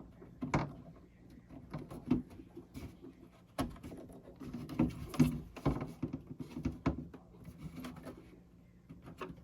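Plastic cover being pried with a screwdriver: irregular clicks, taps and scrapes of the screwdriver and plastic panel as it is worked off its retaining pins.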